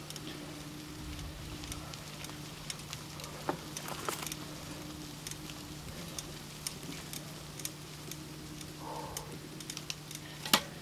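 Mountain bikes rolling on a dirt track: scattered crackling clicks from tyres on grit and from the bikes' drivetrains, over a steady low hum, with one sharp louder click near the end.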